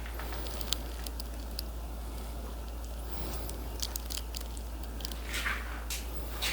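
Food being handled while a bowl of noodle soup is plated: scattered light clicks and soft squishy sounds, over a steady low hum.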